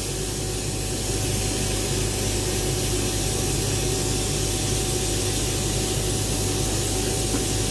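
Sandblast cabinet blasting a metal tube with 60-mesh aluminium oxide grit: a steady hiss of air and abrasive. A low steady hum runs beneath.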